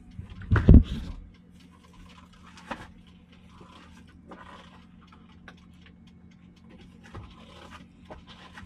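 Handling noise as a phone camera is moved about a truck cab: a couple of loud bumps about half a second in, then faint rustling and small scrapes, over a low steady hum.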